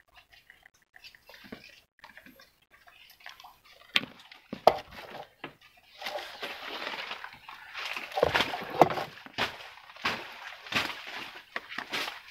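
Water splashing and sloshing in irregular bursts. It starts faintly, picks up about four seconds in and grows busy and louder from about six seconds.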